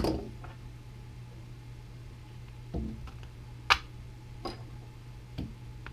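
Scattered clicks and knocks from handling a GV snowshoe binding with its aluminium crampon on a wooden workbench: a sharp click at the very start, a duller thump near three seconds, another sharp click just after it and a few lighter taps near the end. A low steady hum runs underneath.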